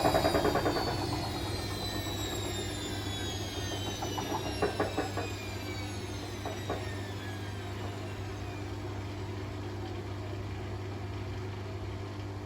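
Bosch WAE24366 washing machine drum spinning down after a test spin. The motor whine falls in pitch and fades under a steady low hum, with a few knocks and rattles about halfway through. The owner puts the fault down to a broken drum spider rather than bad bearings.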